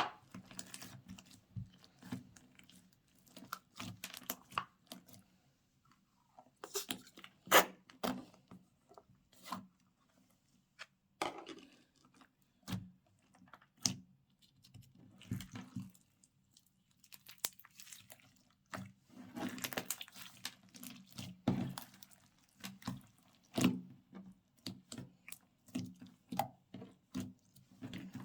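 Slime being squished and mixed by hand, with irregular sticky clicks, crackles and small pops and a few louder pops.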